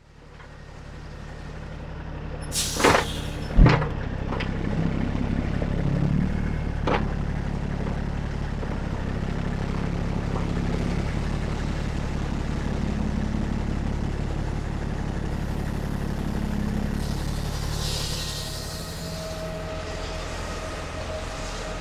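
Diesel engine of a Peterbilt 379 semi truck running steadily, with a few short, sharp sounds about three to four seconds in and another near seven seconds.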